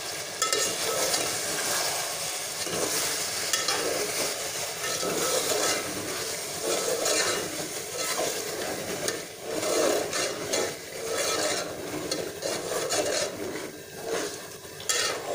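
A metal spoon stirring and scraping chicken pieces with tomatoes and spices that are frying in ghee in a metal pot, the food sizzling under the stirring.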